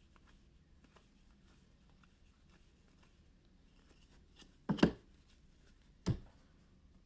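Faint rustle of trading cards being handled and slid against each other, then two knocks on the table near the end, the first a quick double and the second a single one about a second later.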